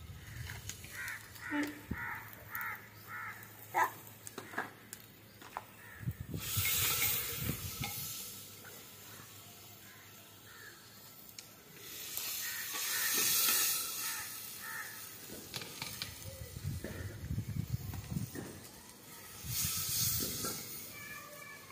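Crows cawing, with a run of about six quick caws about a second in. Three times a louder hiss swells up for a second or two and fades.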